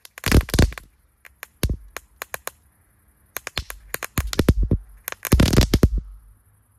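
Small consumer firework going off in repeated bursts of rapid sharp cracks and pops, the densest burst near the end, with a faint hiss between bursts.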